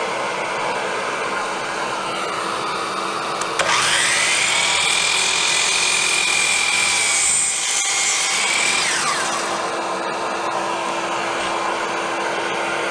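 Hercules dual compound miter saw's motor starting suddenly with a rising whine, running at speed for about five seconds, then winding down. A steady blowing noise runs underneath throughout.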